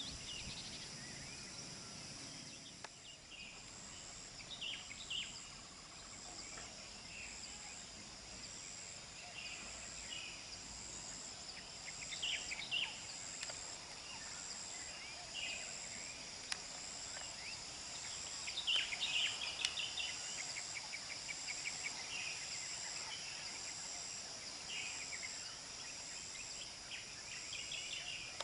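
Chorus of insects such as crickets: a steady high trilling with a second, higher call pulsing about once a second, and scattered short chirps above it.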